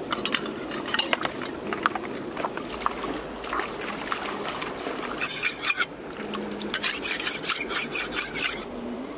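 Water splashing in a shallow rocky stream as bare feet wade and hands work in the water: quick irregular splashes that come in two denser runs in the second half, over the steady rush of flowing water.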